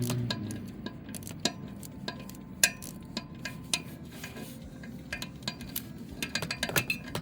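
Irregular sharp metal clicks and clinks of a 3/8-inch drive wrench and 12 mm universal joint socket loosening oil filter housing bolts, with a quicker run of clicks near the end.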